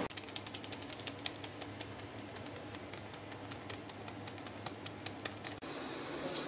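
Dried oregano crumbled between fingers and sprinkled over a foil tray of cheese-topped lasagna: a patter of fine, irregular crackling ticks that stops abruptly near the end.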